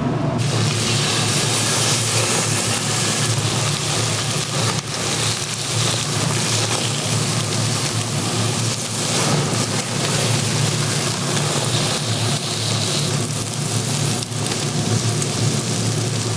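Pork sizzling and crackling on a hot barbecue grill, a loud and steady sizzle that starts abruptly right at the beginning, over a steady low hum.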